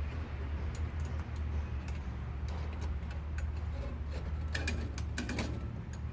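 Scattered light metallic clicks and ticks of cable-railing hardware being handled and turned, with a cluster of sharper clicks about four and a half seconds in, over a steady low hum.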